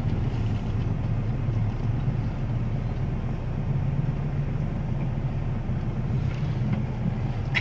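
Steady low hum of idling engines in a slow traffic jam, heard from inside a car's cabin.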